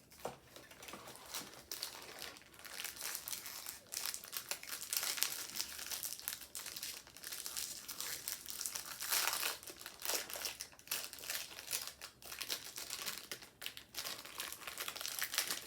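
Plastic snack wrapper being handled and opened: a long run of irregular crinkling and crackling, with a few louder stretches of rustling about a third and about two-thirds of the way through.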